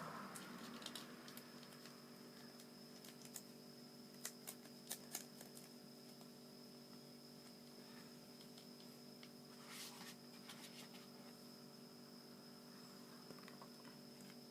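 Near silence: a faint steady hum, with a few soft clicks and a brief rustle of origami paper being handled.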